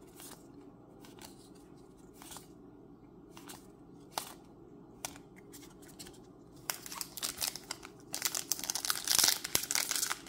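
Scattered soft clicks of trading cards being handled. Then, from about seven seconds in, a booster pack's plastic wrapper crinkles and tears as it is ripped open, loudest near the end.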